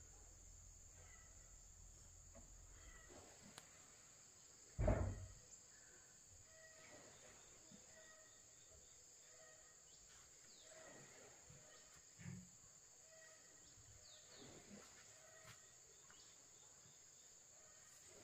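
Faint rural ambience: a steady high drone of insects with faint repeated chirps. A single dull thump about five seconds in is the loudest sound, with a smaller one about twelve seconds in.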